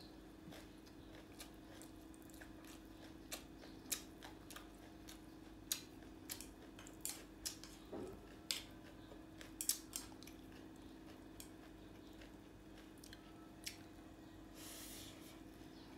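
Chopsticks clicking and tapping against a small bowl, scattered irregular ticks with soft chewing of banana flower salad, over a faint steady hum. Near the end a short breathy slurp as a mouthful of the shredded salad goes in.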